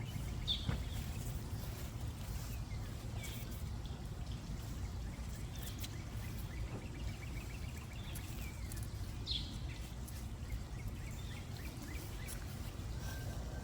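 Outdoor background: a steady low rumble with a few short bird chirps and, partway through, a brief run of quick repeated bird notes.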